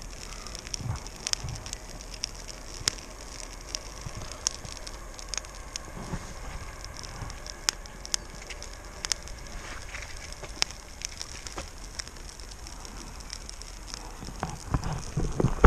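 Small freshly lit campfire of birch and dead pine and hazel twigs crackling as the kindling catches, with irregular sharp pops and snaps.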